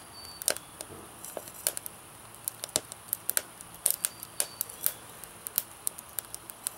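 Twig fire crackling inside a small homemade rocket stove, with irregular sharp pops and snaps several times a second.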